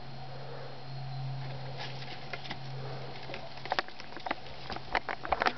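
Pet rabbits eating lettuce and moving on straw: scattered crisp clicks and rustles that come faster and louder in the second half, over a steady low hum.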